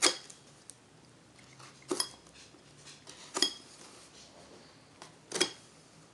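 Four sharp metallic clinks, each with a brief ring, spaced about one and a half to two seconds apart.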